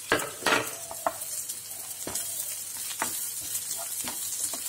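Chopped onions, green chillies and ginger sizzling in hot oil in a kadai while a wooden spatula stirs and scrapes them around the pan: sautéing. Two louder scrapes near the start, then lighter strokes every half second or so over a steady hiss.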